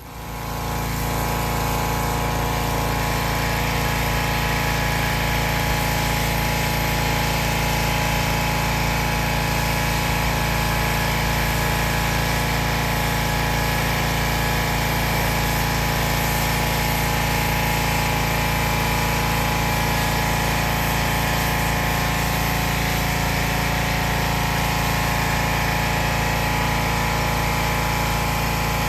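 Pressure washer running at a steady pitch, coming up to full level within the first second and then holding constant.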